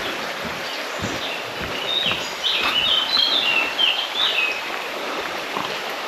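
Small songbird chirping in a quick run of short, high notes from about two seconds in until past the middle, over a steady background hiss.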